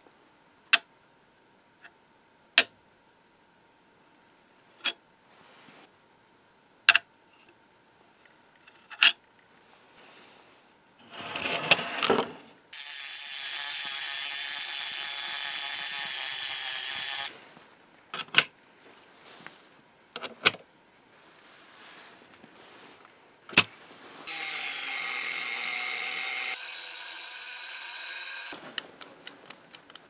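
Handheld rotary tool with a sanding drum running twice for about four seconds each, grinding down the post of a skeleton key that is too large for the lock; the second run changes pitch partway through. Sharp metal clicks fall singly before, between and after the runs.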